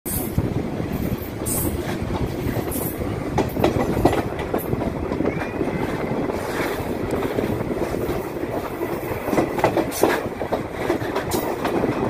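Train running, with a steady rattle and irregular clacks of the wheels over the rails.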